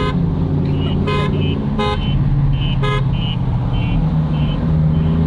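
Car horn sounding three short toots over a steady engine drone, with a short high beep repeating about twice a second. The horn is triggered by a remote paired to the car's aftermarket alarm.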